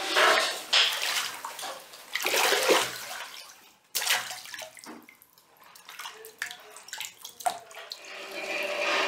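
Water splashing and sloshing as aloe vera leaves are tipped and handled in water, loudest near the start and again around two to three seconds in. After that, a few sharp clicks of a knife cutting through aloe leaves.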